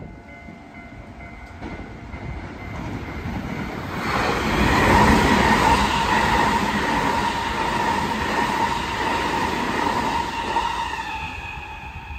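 An 8-car JR West 223 series electric train runs past the platform: wheel rumble on the rails with a steady whine over it. It builds about four seconds in, is loudest a second or two later, and fades near the end.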